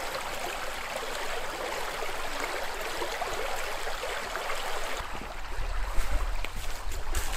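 Small river running quickly over a riffle formed by fallen trees, a steady rushing of water through a tangle of branches. About five seconds in the rushing gives way to a low rumble and a few sharp knocks.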